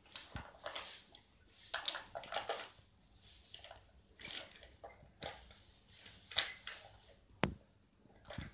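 Plastic toy car-transporter truck being handled by a small child: irregular rustling, scraping and light clatter of the plastic and its toy cars, with a sharp knock about seven and a half seconds in.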